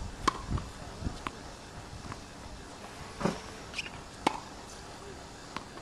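Sharp pops of a tennis racket striking balls on volleys at the net: two about a second apart near the start, two more past the middle, and a fainter one near the end.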